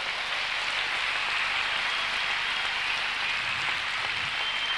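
Arena crowd applauding a well-won point in a table tennis match, a steady, dense clapping that swells up just before and holds loud.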